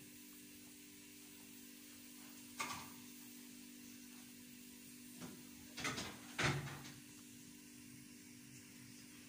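A few short knocks and clatters, twice in quick succession about six seconds in, the last the loudest, over a steady low hum.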